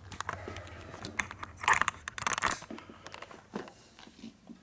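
Handling noise on a workbench: a run of clicks, knocks and scrapes, busiest about halfway through.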